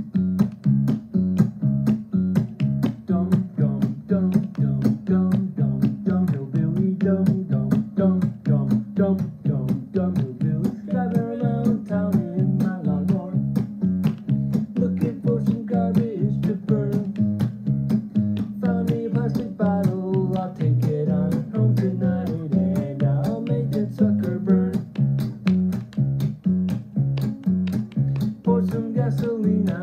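Acoustic guitar strummed in a steady, quick rhythm over a repeating bass line, with a melody line over it: a hillbilly-blues song.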